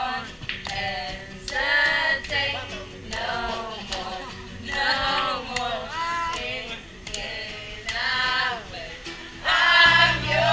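Several women's voices singing together in short repeated phrases. Near the end a recorded song with a heavy bass line comes in.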